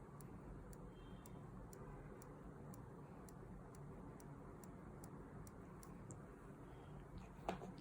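Faint, regular ticking of a Seagull ST2108 automatic watch movement, with one louder click near the end.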